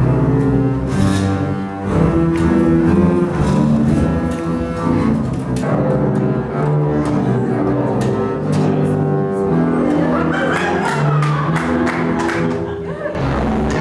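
A group of double basses playing together, mostly bowed, in low sustained notes that change pitch every second or so. Near the end the sound cuts abruptly to different music.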